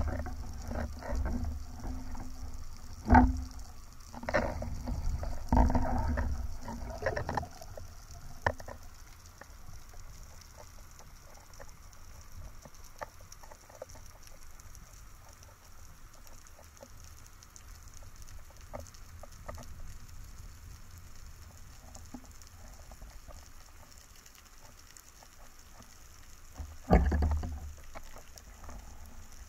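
Muffled underwater sound through a camera housing worn by a freediver: low thuds and sharp knocks during the first several seconds as he dives and handles the speargun, then a quiet stretch with faint scattered crackling clicks, and another low muffled rumble near the end.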